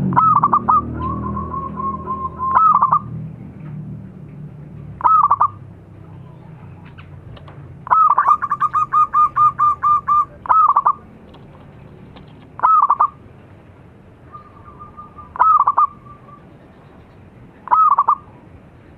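Zebra dove (perkutut) calling loudly: short bursts of cooing notes every two to three seconds, with a longer fast run of about a dozen notes around the middle. A low rumble fades out over the first few seconds.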